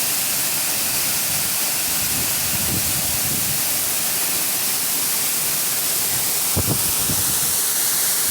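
Waterfall rushing, a steady hiss of falling water. A brief low bump about two-thirds of the way through.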